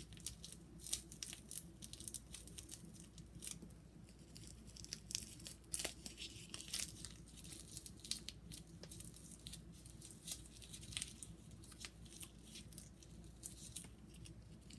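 Paper Splenda sweetener packets being crinkled and torn by hand: a run of quick, irregular crackles.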